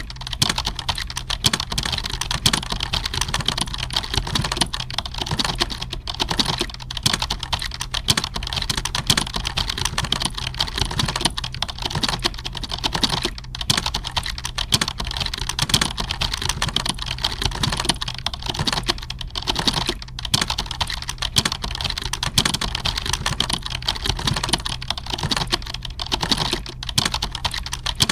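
Computer keyboard typing: fast, continuous keystrokes that overlap with no pauses, with a steady low hum underneath.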